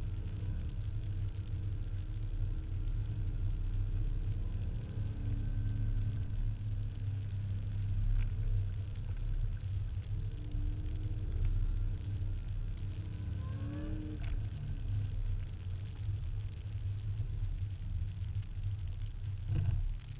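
Steady low car engine rumble heard from inside a car's cabin, with faint engine revs that rise in pitch about two-thirds of the way in.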